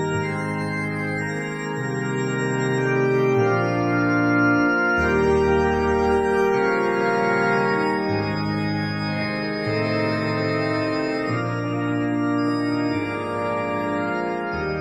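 Background music of slow, sustained organ chords. The chords change to new notes every second or two.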